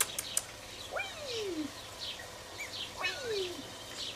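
Small birds chirping steadily in the background, with two drawn-out whines, about two seconds apart, that slide down in pitch. A couple of sharp clicks at the very start.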